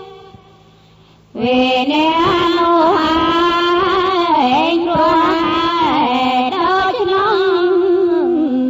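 Buddhist chanting: a single voice chanting a slow melody in long held notes that bend up and down. A held note dies away at the start, and after a short pause the chant starts again about a second and a half in.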